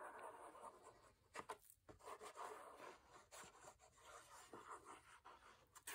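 Very faint, intermittent scratching and rubbing as the wide nozzle of a liquid-glue bottle is drawn across kraft cardstock and the sheet is handled; otherwise near silence.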